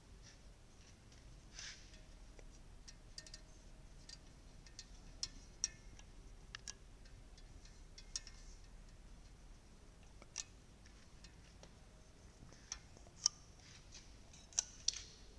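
Faint, irregular sharp clicks and ticks of small parts being handled, about a dozen of them scattered over a low background hiss.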